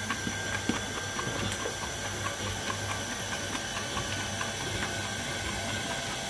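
KitchenAid Artisan stand mixer running on low speed with the flat beater turning through a whipped egg-and-sugar mixture: a steady motor hum with a light, regular ticking.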